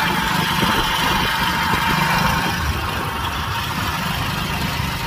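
Motorcycle engine running steadily while riding along a road, with wind rushing on the microphone.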